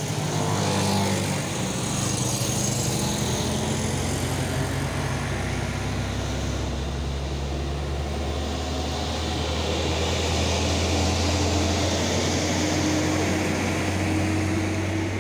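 Road traffic passing close: small motorcycle engines at first, then the diesel engine of a Hino heavy truck, a steady low rumble that builds as it approaches and is loudest about two-thirds of the way through as it passes, with tyre noise on the asphalt.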